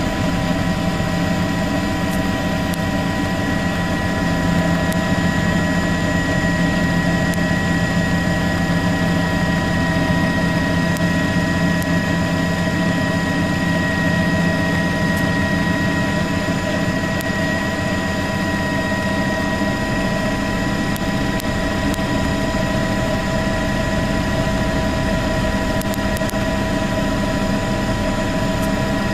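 Helicopter engine and rotor noise: a steady, loud drone with several high whining tones held at a constant pitch.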